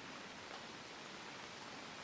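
Faint, steady hiss of light rain.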